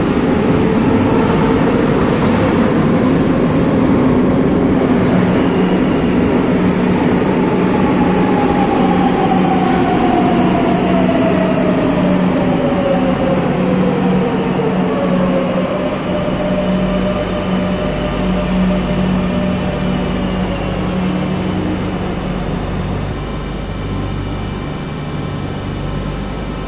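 Madrid Metro electric trains at an underground platform. Early on the motor whine rises in pitch as a train gathers speed, then a second whine falls steadily in pitch as a train brakes to a stop, over a continuous rumble of wheels on rails.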